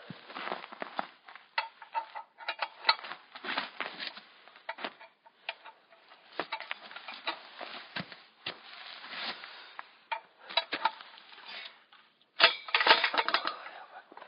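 Campfire being tended: irregular crackling, snapping and clatter of firewood and kindling while the fire is still struggling to catch. A short lull comes about two seconds before the end, followed by a louder burst of clatter.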